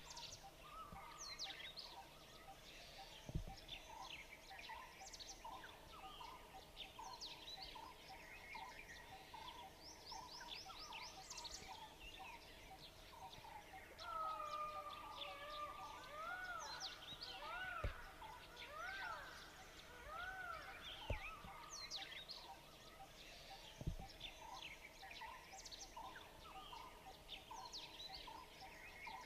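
Forest birdsong: many birds chirping with quick, high, falling notes over a steady pulsing call. About halfway through, one bird gives a long gliding note followed by about four arched, rising-and-falling whistles. A few faint clicks.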